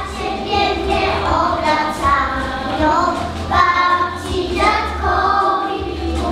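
A group of young children singing together, with backing music.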